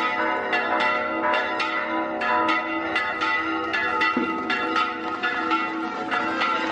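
Church bells ringing in quick succession, about three strikes a second on several pitches, their tones ringing on between strikes.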